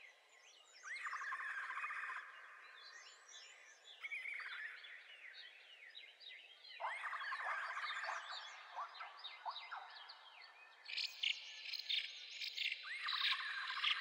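Several songbirds singing: trilled phrases about a second long come back every few seconds, with many short chirps between them and a quick run of sharp chips near the end.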